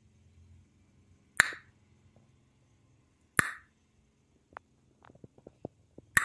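Hand claps, four sharp single claps roughly two seconds apart, the last one near the end, made to trigger a sound-activated clap switch that toggles a lamp. A few faint small clicks come between the third and fourth claps.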